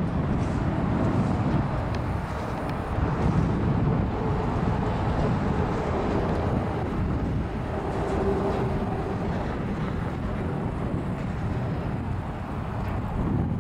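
Steady low rumble of outdoor background noise, wind on the microphone mixed with distant city traffic, with a faint hum about halfway through.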